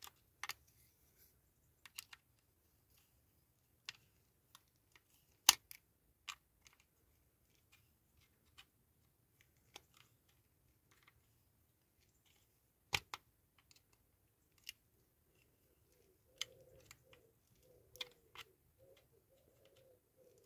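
Scattered sharp clicks and taps of small parts of a diecast toy road sweeper being handled and fitted during reassembly, irregularly spaced with two louder knocks. About three-quarters of the way through, a bird starts cooing faintly.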